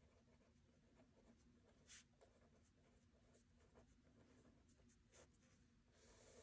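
Faint scratching of a pen writing on a notebook page, in short strokes.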